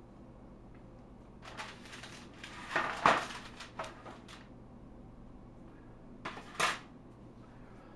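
Metal clatter from handling a deep fryer's wire basket: a run of rattles and knocks lasting about three seconds, then two short knocks near the end.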